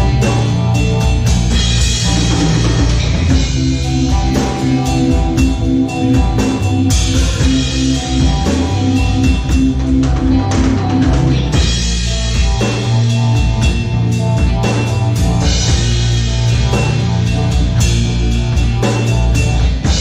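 Psychedelic rock music: a drum kit keeping a steady beat under guitar and sustained instrumental notes.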